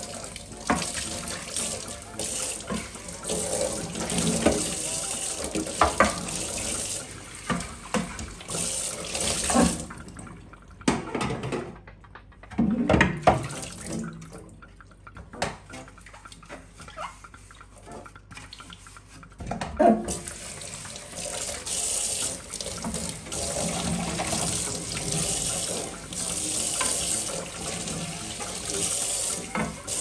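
Kitchen tap running into a stainless-steel sink as a clear plastic fridge drawer is rinsed under the stream. About a third of the way in the water stops while the drawer is scrubbed with a sponge, with a few knocks as it is handled. The tap runs again about two-thirds of the way through.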